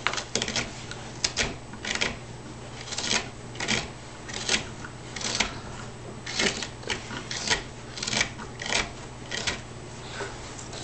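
Hand carving knife cutting into a softwood board: a run of short, crisp scraping cuts, one or two a second at an uneven pace, as chips are sliced out along an incised line.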